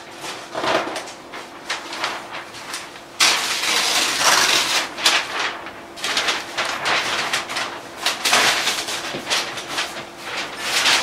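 A pen drawing on a board: a run of scratchy rubbing strokes, each under a second long, growing denser and louder from about three seconds in.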